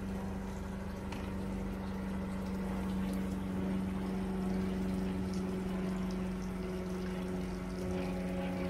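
A boat's motor running steadily at low speed, a constant even hum, with water washing around the hull.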